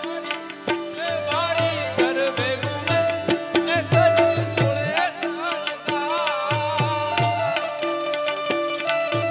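Indian folk music accompaniment: hand drums keep up a steady rhythm with sharp strokes and deep bass strokes, under a wavering melody line and steady held notes.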